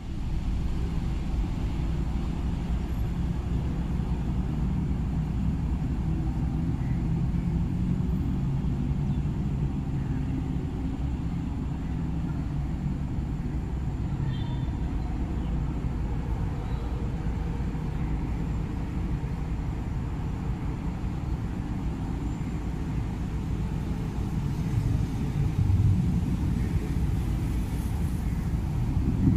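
KTMB Class 26 'Blue Tiger' diesel-electric locomotive's engine running with a steady low rumble as it approaches slowly, growing a little louder near the end.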